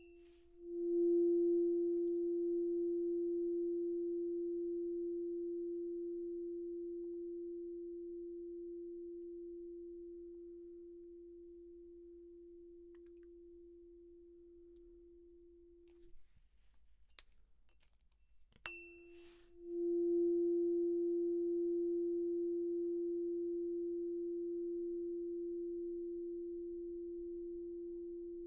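Tuning fork struck and left ringing for a hearing test, a steady pure tone that fades slowly. It is cut off suddenly about sixteen seconds in. After a few small clicks it is struck again with a sharp tap and rings on, slowly fading.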